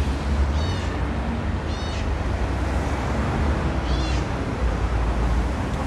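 Parrots screeching: three short, harsh, high calls, each a quick run of repeated notes, the first about half a second in and the last about four seconds in, over a steady low rumble.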